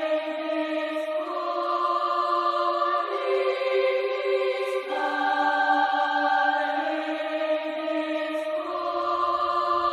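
Slow background music of held, choir-like chords that change every second or two; a low bass comes in near the end.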